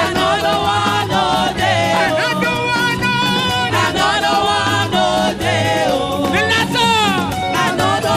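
Live church praise music: singing voices over a band with a repeating bass line and a steady drum beat, in an upbeat dance rhythm.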